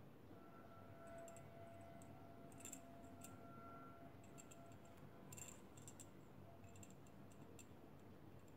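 Near silence with faint, irregular light clicks of a thin metal crochet hook working yarn.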